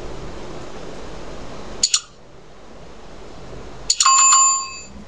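Subscribe-button animation sound effects: a quick double click about two seconds in, then more clicks and a bright bell ding that rings for about a second near the end, over a faint steady hiss.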